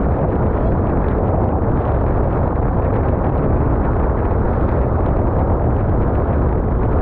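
Strong wind buffeting the microphone in a loud, steady low rumble, over the rush of choppy water and spray along a wooden open boat's hull.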